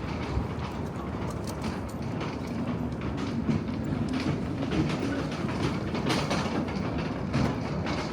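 A train running with a steady rumble and frequent rattling clicks of wheels on the track.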